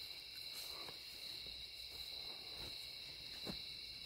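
Steady, high-pitched chorus of night insects, with a few faint soft knocks.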